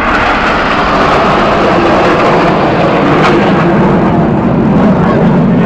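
BAE Hawk T1 jet trainers passing by, a loud jet roar whose pitch slowly falls as they go.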